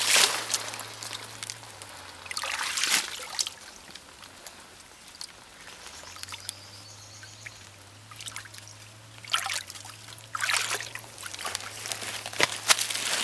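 Hands splashing and sloshing in shallow muddy water while groping along the bottom for catfish. The splashes come in bursts at the start, a few seconds in, and again through the last few seconds, with a quieter stretch of faint trickling between.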